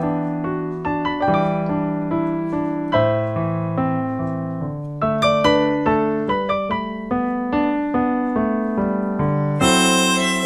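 Piano playing an interlude, struck notes and chords ringing and fading one after another. Near the end a harmonica comes back in with a held, bright phrase over it.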